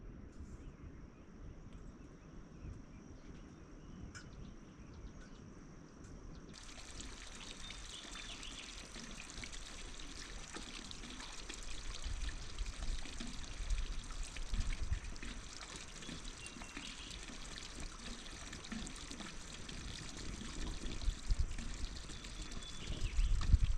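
Steady rush of running or pouring water that starts suddenly about six seconds in, with a few low thumps, the loudest near the end.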